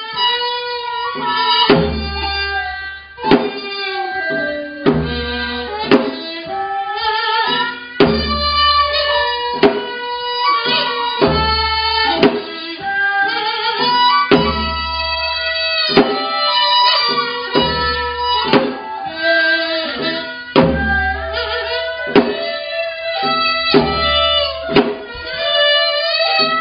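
Traditional Korean court music from a live ensemble accompanying a court dance. A slow, sustained, wavering melody plays over a steady drum stroke that falls about every second and a half.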